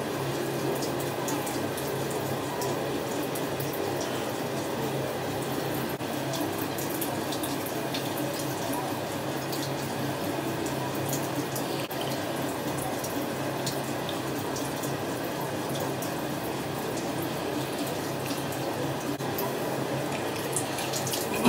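Water running steadily from a bathroom tap, with small splashing ticks.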